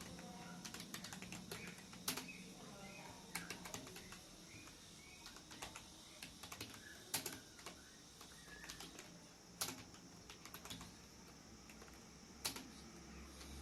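Typing on a computer keyboard: uneven runs of soft key clicks, with a few sharper, louder keystrokes here and there.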